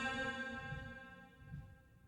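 The last of a Quran reciter's long held note dying away with reverberation, fading out over about a second and a half into near silence.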